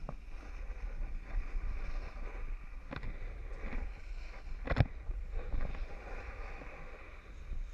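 Snowboard sliding and scraping over packed snow at speed, with wind rumbling on the camera's microphone. Two sharp knocks come about three seconds and about five seconds in, the second the louder.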